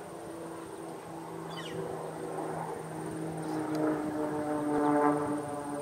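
Aerobatic propeller plane's engine droning overhead, its pitch shifting slightly as it manoeuvres and growing louder about four to five seconds in.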